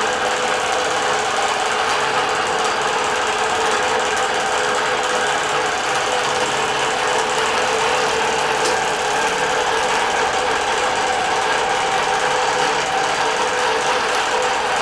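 Bernina Q24 longarm quilting machine stitching at high speed under computer guidance: a steady, even run of fast needle strokes over a constant motor hum.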